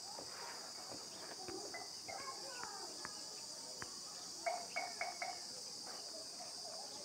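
Faint background noise: a steady high-pitched drone with scattered faint chirps and ticks.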